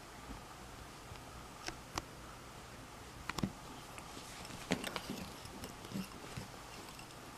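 Kitten biting and pawing at a pencil while rolling on upholstery: scattered soft clicks and taps, busiest around the middle.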